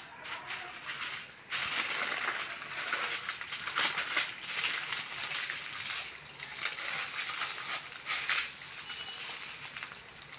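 Aluminium foil crinkling and crackling as it is folded and pressed around a rolled paratha wrap, starting suddenly about one and a half seconds in and going on in irregular crackles, easing near the end.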